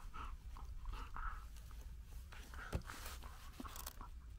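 A White Swiss Shepherd Dog gnawing a wooden stick: an irregular run of teeth crunching and clicking on the wood, with one sharper crack about two-thirds of the way through.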